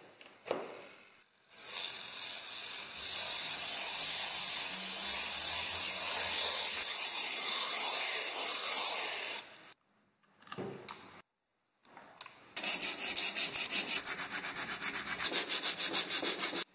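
A plug clicks into a power strip. Then comes a steady, unbroken rubbing for about eight seconds as abrasive paper is held around the shaft of the fan's electric motor while it spins, polishing the shaft. After a pause, sandpaper is rubbed back and forth by hand along the motor's metal frame in quick strokes, about five a second.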